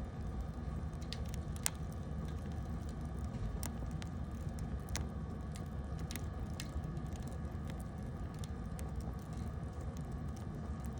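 Wood bonfire burning, with scattered sharp crackles and pops of the burning wood over a steady low rumble. The loudest pop comes about one and a half seconds in.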